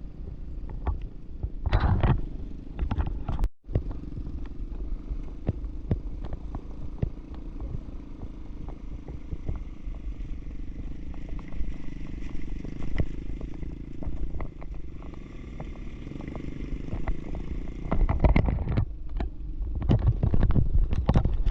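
ATV engine running steadily with scattered knocks and clatter, and louder low rumbling near the end. The sound drops out for an instant a few seconds in.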